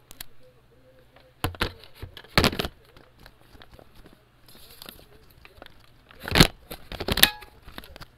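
Shark Navigator upright vacuum sucking debris up off carpet: several sharp crunching, crackling bursts, the loudest two near the end, over a low steady hum.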